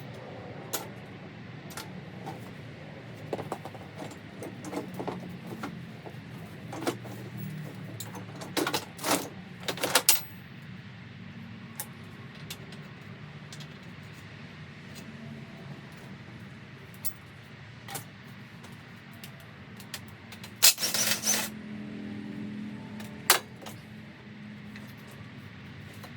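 Metal tools and motorcycle parts clinking and clattering in scattered knocks, with a few louder metallic hits about a third of the way in and a short rattling burst near the three-quarter mark, over a steady low hum.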